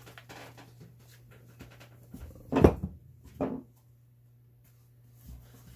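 Handling noises at a wooden workbench as objects are set down and a rubber-soled athletic shoe is picked up, with two short loud scuffs or squeaks about two and a half and three and a half seconds in, over a steady low hum.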